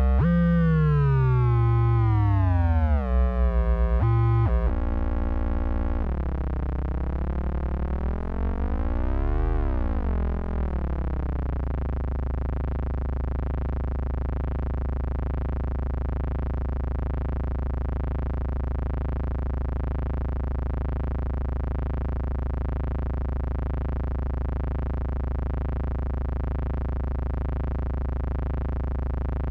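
Qun mk2 synthesizer playing a sustained drone, its pitch sweeping down over the first few seconds, then dipping and rising again as its parameters are changed, before it settles into a steady held tone about twelve seconds in.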